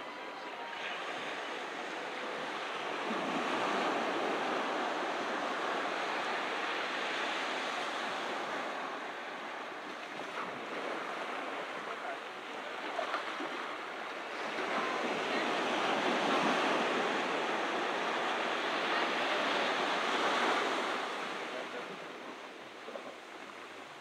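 Ocean surf breaking and washing up the beach in two long swells, each building over a few seconds, then easing away.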